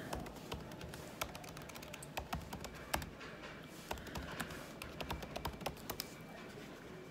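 Typing on a laptop keyboard: irregular keystroke clicks, with a few sharper taps among them.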